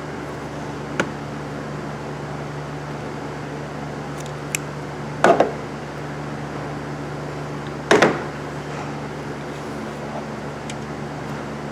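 A steady low hum with a few light clicks, and two louder short clattering knocks about five and eight seconds in.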